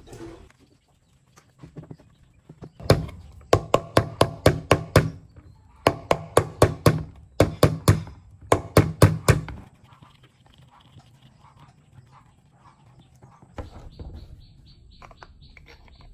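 Runs of sharp knocks on the hard plastic parts of an electric fan as it is put back together, several strikes a second in four or five quick bursts between about three and nine and a half seconds in, each with a short hollow ring. Quieter handling clicks follow.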